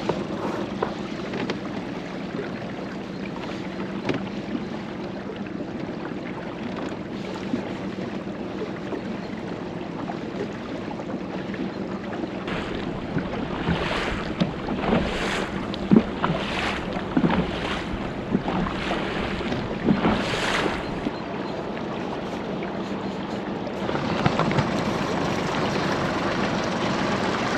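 Motorboat engine running steadily, a low hum under the rush of water along the hull, with a few sharp water splashes around the middle. The running noise grows louder near the end as the boat picks up speed.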